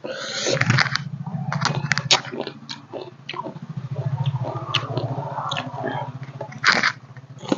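Close-up mouth sounds of chewing orange segments and pomegranate seeds: a string of wet smacks and sharp little crunches and clicks, with a low droning hum under most of it.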